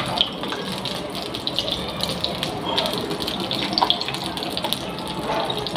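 Egg paniyaram batter sizzling in hot oil in the wells of a cast paniyaram pan as it is ladled in, a steady hiss with frequent small crackles and pops.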